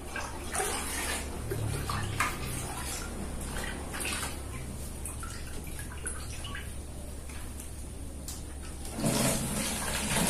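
Liquid splashing and pouring: a cooled decoction of ginger, betel leaf and brotowali scooped from an aluminium pot and poured into the mouth of a plastic jerrycan, with small knocks of handling. The pour grows loudest near the end.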